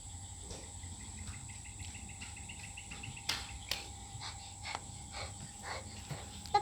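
Insects trilling steadily on one high note, with a run of quick even chirp pulses from about a second in and scattered short ticks and chirps after it.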